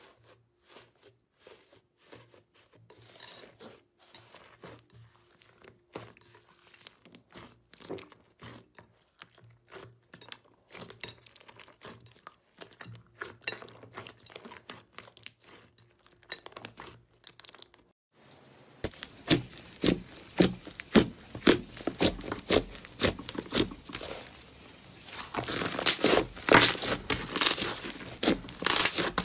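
Hands squeezing and stretching slime, giving rapid sticky crackles and squelching pops of trapped air. About two-thirds of the way in the pops grow louder and denser, with the thickest run near the end.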